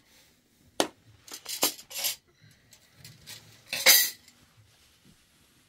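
Metal serving spoon clinking and scraping against a cooking pot while rice is scooped out: one sharp clink about a second in, a quick run of scrapes, then a louder scrape near the end.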